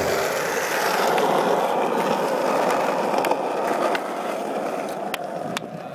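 Skateboard wheels rolling on smooth concrete, a steady rolling rumble with a few light clicks, fading out over the last couple of seconds.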